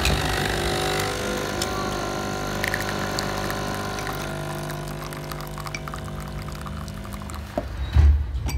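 Krups Nespresso capsule coffee machine's pump humming steadily as it pushes an espresso shot into a glass, stopping about seven and a half seconds in. Light clinks of a spoon stirring in a glass sound over it, and a thump comes near the end.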